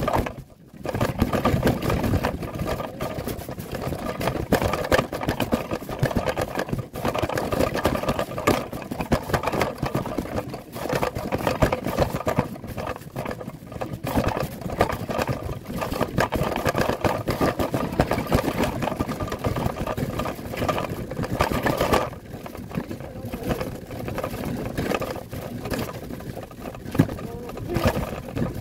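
Folding canvas wagon being pulled along, its wheels rolling and the frame and load rattling: a continuous rough rumble full of small knocks, heard from inside the wagon, with a brief lull just after the start.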